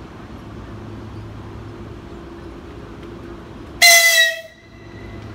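Short, loud horn toot from an ES2G 'Lastochka' electric train standing at the platform. The toot comes a little under four seconds in, lasts about half a second and stops sharply, over a steady hum.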